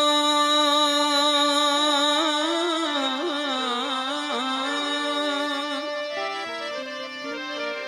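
Harmonium and a male singer in a devotional bhajan. A long held note wavers into a melismatic ornament about two seconds in, and near the end the harmonium plays a short stepped melodic phrase between sung lines.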